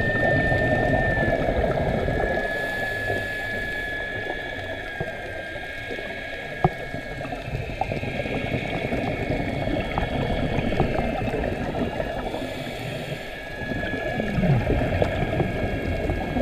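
Underwater sound of scuba diving: the bubbling rush of a diver's exhaled air from the regulator, loudest near the start and again near the end. Under it runs a steady high whine, with a few sharp clicks.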